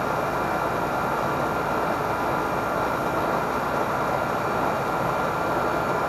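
Outdoor condenser unit of an R22 central air conditioner running: the condenser fan and compressor make a steady rushing noise.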